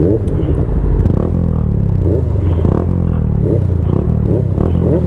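Motorcycle engine running at low speed with an uneven note, broken by several short rising blips.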